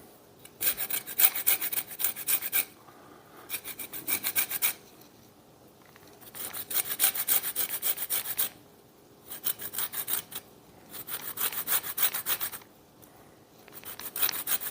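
A lime's peel being zested on a grater: six runs of quick scraping strokes, each run lasting about one to two seconds, with short pauses between them.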